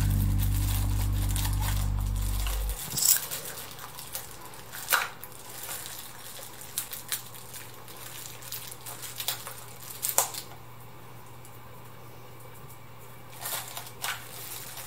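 Background music that cuts off about two and a half seconds in, followed by clear plastic packaging crinkling and crackling in irregular bursts as it is handled and pulled off an appliance part by hand, with a quieter pause near the end.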